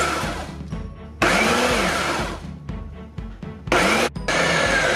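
Ninja blender motor chopping oats, dates and raisins into a sticky dough, run in pulses. It cuts in abruptly about a second in and winds down, gives a short burst near the end, then runs steadily.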